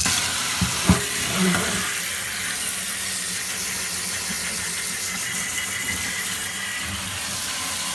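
A strong jet of water spraying steadily onto a Commodore VIC-20 motherboard in a sink, rinsing off grime, with a couple of knocks about a second in.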